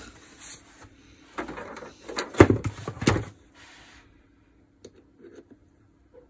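Handling noise from a disassembled DeWalt DCH333 cordless rotary hammer as its mode-change lever and retaining pin are worked at: a run of clicks, knocks and scraping, loudest about two and a half seconds in, then a few faint clicks near the end.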